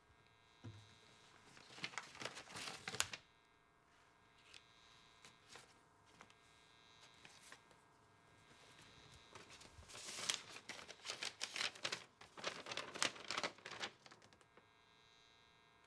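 Paper handling: a short rustle about two seconds in, then a paper envelope being torn open from about ten seconds in, with crinkling as the letter is pulled out and unfolded.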